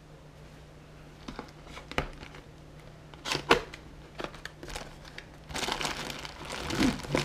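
Cardboard box flaps being pried open with a few sharp clicks, then a plastic parts bag crinkling as it is pulled out of the box, starting about five and a half seconds in.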